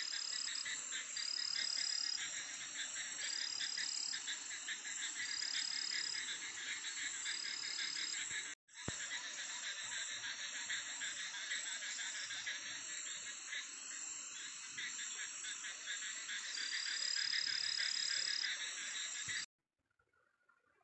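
Night chorus of frogs and insects: dense, fast-pulsing calls under a steady high trill, with a higher call repeating every second or two. It breaks off for a moment about eight and a half seconds in and stops about a second before the end.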